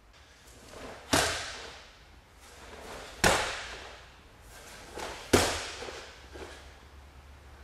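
Three sharp slaps about two seconds apart, each led in by a short rising swish and followed by a brief echo: a bare foot stamping onto the mats together with the snap of a cotton karate gi, as the karateka steps sideways into horse stance in the Heian Sandan kata.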